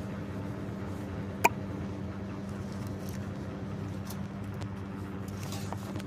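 A steady low hum with one sharp, very short click about a second and a half in, and a few faint ticks later on.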